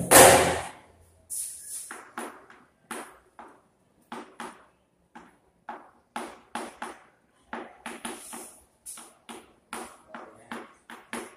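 Chalk writing on a blackboard: a run of short, separate taps and scratches, a few a second, one for each stroke of the letters. It opens with a brief loud rubbing noise.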